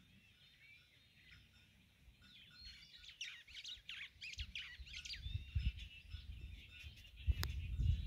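Small birds chirping in a quick run of short calls, busiest in the middle. From about halfway a low rumble builds up, with a sharp click near the end.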